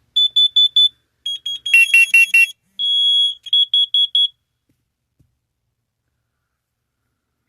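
Several carbon monoxide alarms beeping in groups of four quick, high-pitched beeps, the standard alarm pattern for detected carbon monoxide. Two alarms of different pitch overlap about two seconds in, and there is one longer beep near the middle. All of them fall silent for the last three seconds.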